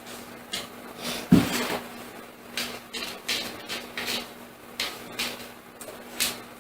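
A dozen or so irregular knocks and clatters in a small room, the loudest a heavy thump about a second and a half in, over a steady low hum.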